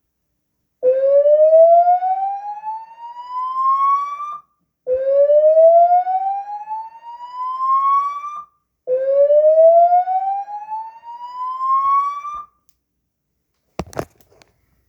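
Notifier AFP-400 voice evacuation alert tone: three slow rising whoops, each about three and a half seconds long, between repeats of the evacuation message. A short sharp click comes near the end.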